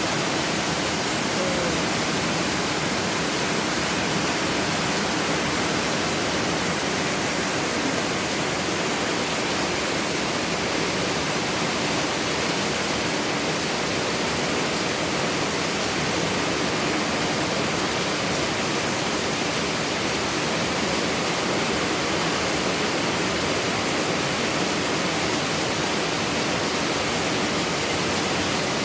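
Heavy rain pouring down in strong wind, a steady, even hiss that does not let up.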